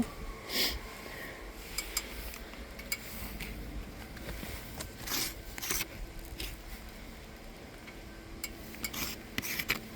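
Scattered light clicks and a few short scrapes of someone handling and scuffing asphalt roof shingles.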